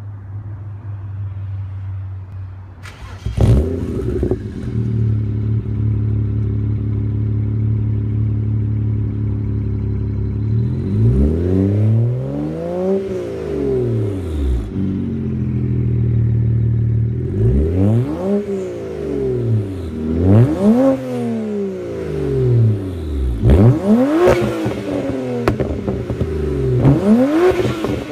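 BMW E61's twin-turbo N54 inline-six, straight-piped with a Magnaflow resonated X-pipe, starting warm about three seconds in and settling to a steady idle. From about eleven seconds on it is revved several times, each rev a sharp climb and fall in pitch.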